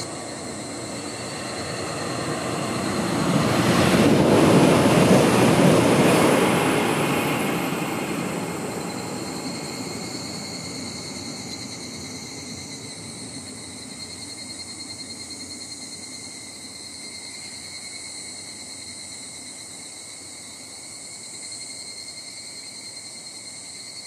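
Shinkansen high-speed train passing on the viaduct: a broad rushing noise swells to a peak about four to six seconds in, then slowly fades away.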